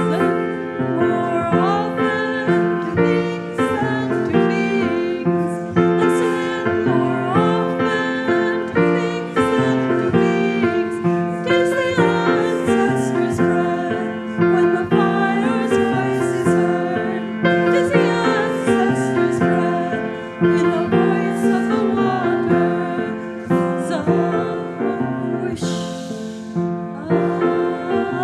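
Hymn music: piano and violin accompanying singing voices, with a short cymbal wash near the end.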